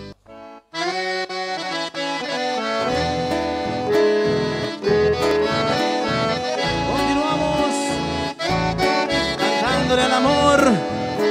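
Instrumental intro of a live band song with an accordion playing the lead melody. A pulsing bass rhythm joins about three seconds in.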